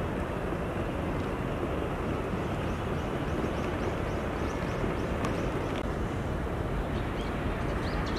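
Steady hum of city road traffic, with a few faint high chirps now and then.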